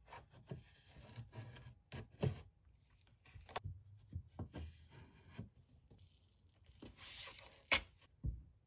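Painter's tape being pulled off the roll and torn into strips, with light knocks and scrapes of thin plywood panels handled against a plywood box. A longer rip of tape comes about seven seconds in.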